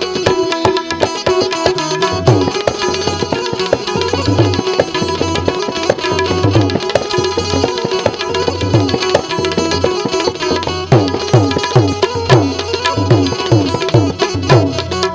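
Instrumental devotional music: tabla playing a quick, steady rhythm, its bass-drum strokes sliding down in pitch, over steady held notes from an accompanying melodic instrument.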